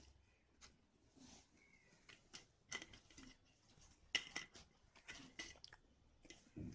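Faint crackling and clicking as fingers pick up and break crisp tava-cooked dal vadas on a steel plate, with a sharper cluster of crackles a little after four seconds in.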